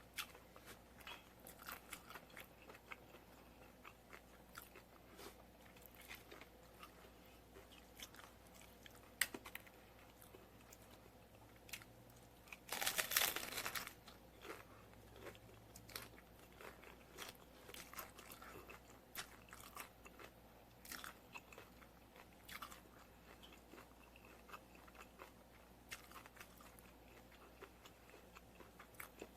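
Close-miked chewing of crunchy hard-shell tacos: a steady run of small crackling crunches, with one loud, dense crunch of a bite into the shell about thirteen seconds in.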